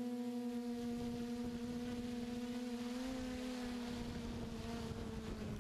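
QAV540G multirotor's motors and propellers humming on a steady pitch, heard from its onboard camera, with the pitch sinking slightly near the end as it sets down to land. A gusty rushing of prop wash off the ground comes in about half a second in.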